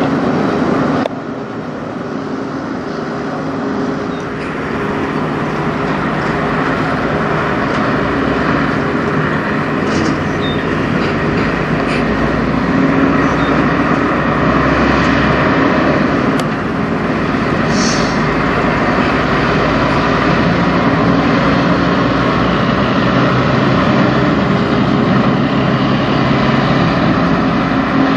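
Kenworth semi truck's diesel engine running under power as the tractor-trailer pulls away and drives past, its engine note rising and falling. The level drops suddenly about a second in.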